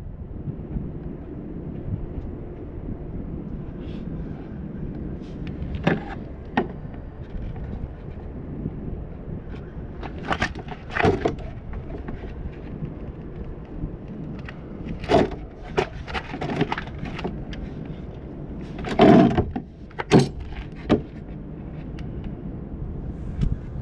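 Scattered knocks and clatters from hands-on work on a plastic aftermarket bumper piece, over a steady low background rumble. The loudest knocks come in a cluster about three-quarters of the way through.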